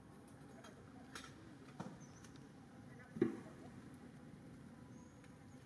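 Quiet outdoor background with a few faint clicks and one short thump about three seconds in.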